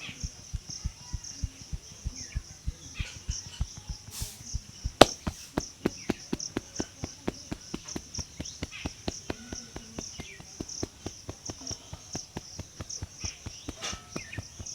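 Rapid rhythmic hand tapping of a percussive head massage, about five dull slaps a second, with one sharp crack about five seconds in.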